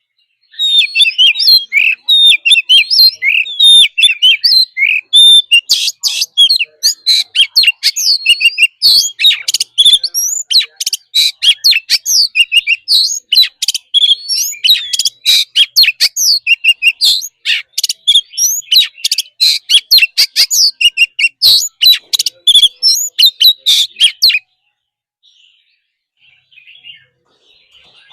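Oriental magpie-robin singing loudly: a fast, continuous run of varied whistled phrases mixed with sharp, harsh notes, which stops abruptly near the end.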